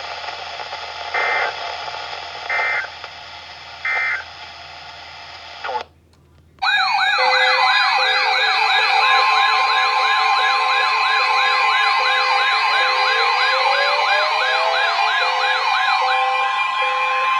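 Weather radio Emergency Alert System end-of-message signal: three short digital data bursts about a second apart over radio hiss. After a brief dropout, a loud electronic siren-like alarm starts, with several tones layered together: fast warbling sweeps, a steady tone, a pulsing beep and a slowly rising wail.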